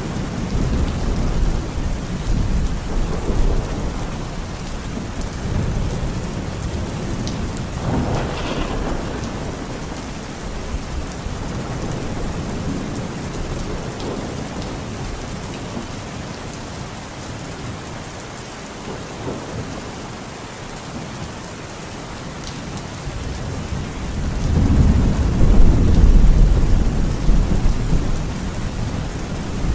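Heavy rain pouring steadily onto surfaces, with thunder rumbling low underneath. A louder roll of thunder swells up near the end.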